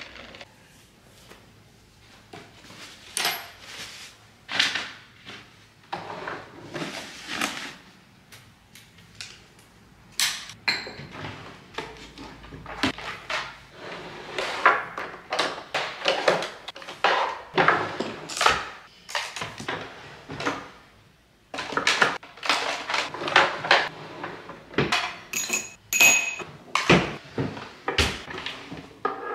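Cosmetic bottles, jars and brushes clinking and tapping as they are moved around and set down on a wooden makeup vanity. The vanity's wooden drawers are opened and shut among them: a long irregular run of small knocks and clatters.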